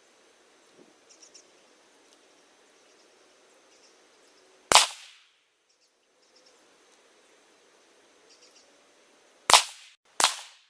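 Three rifle shots, each with a short fading tail: one about five seconds in, then two close together, well under a second apart, near the end.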